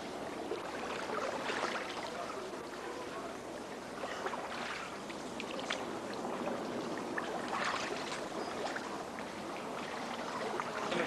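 A small boat being paddled through floodwater: water sloshing and lapping around the hull, with a sharper paddle splash now and then.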